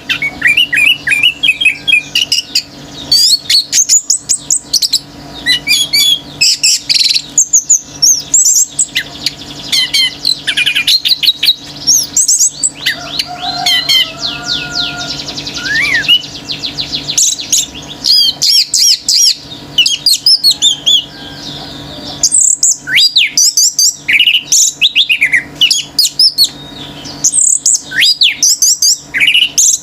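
Orange-headed thrush singing vigorously in a nonstop stream of varied whistled phrases and fast trills, with other birds calling along. A steady low hum runs underneath.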